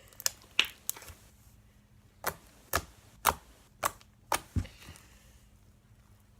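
Slime being pressed and pulled by hand, giving a string of sharp clicks and pops, about nine of them over the first five seconds, then only faint handling.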